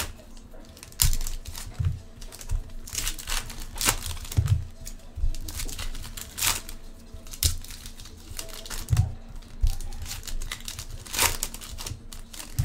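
Foil wrappers of 2015-16 Upper Deck Series 2 hockey card packs being torn open and crumpled by hand: irregular sharp crinkling and tearing, with a few low thumps from handling.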